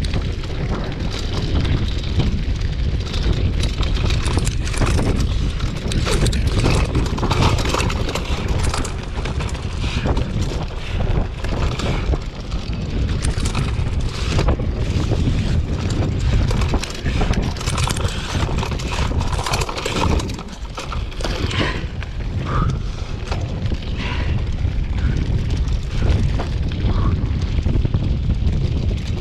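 Wind buffeting the microphone in a steady low rumble as a mountain bike descends a rough dirt trail, with frequent rattles and knocks from the bike jolting over the ground.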